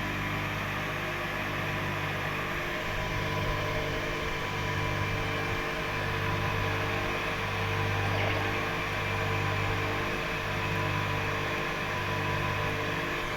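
Homemade grinder's 0.55 kW, 3000 rpm electric motor running steadily with its 125 mm grinding stone spinning, a steady hum that rises and falls slightly every second or two. The stone is not yet biting into the sample.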